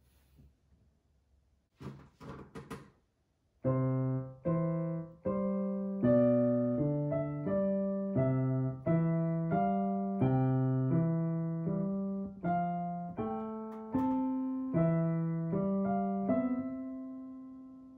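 Digital piano played slowly in block chords by a beginner, a new chord struck about every half second to second, the last chord held and fading away near the end. A few brief noises come about two seconds in, just before the playing starts.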